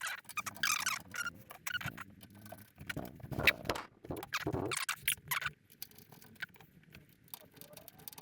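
Screwdriver turning screws and small parts being handled on a PC case: irregular small clicks, taps and scrapes, busier for the first five seconds or so, then quieter.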